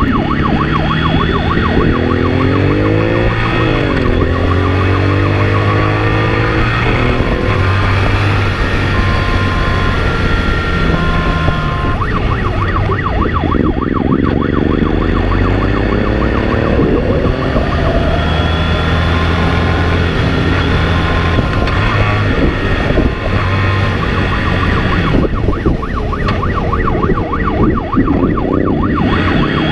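Police motorcycle engine revving hard and dropping back again and again as it accelerates and shifts through the gears in a pursuit. A siren's fast warble comes and goes several times over it.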